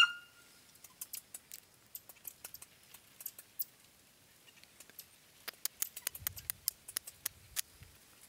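A short, high chirp at the very start, then scattered light clicks and crackles from the dry brush, with a soft low rumble near the end.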